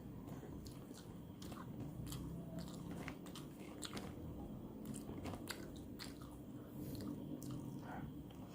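Close-miked chewing and biting of food, with irregular crisp crunches and mouth clicks.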